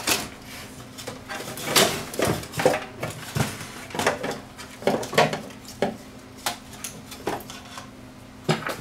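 Light metallic clinks and knocks at irregular intervals as the sheet-metal chassis of a TV/VCR combo's VCR deck and its circuit boards are handled and shifted, over a faint steady hum.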